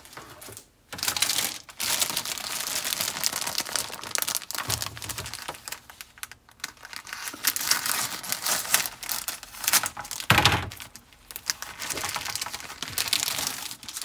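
Clear plastic bags holding model kit sprues crinkling and rustling as they are handled, with a few brief pauses and a dull knock about ten seconds in.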